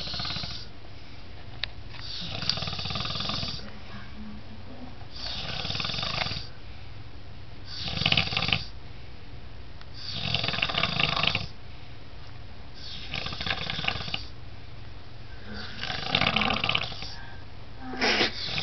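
A sleeping man snoring loudly, one long snore on each breath, about every two and a half seconds.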